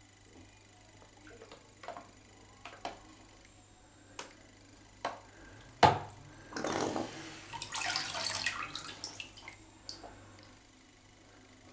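Bathtub water splashing and sloshing for a few seconds as a hand lifts and turns a small foam model boat hull over in the water. It is preceded by a handful of separate sharp knocks and clicks, the loudest just before the splashing begins.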